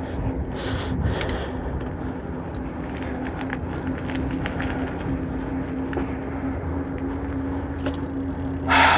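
Mountain bike rolling fast down a choppy dirt trail: steady wind rush over the chest-mounted phone's microphone, tyre rumble and scattered rattles and clicks from the bike. A louder burst of sound comes in just before the end.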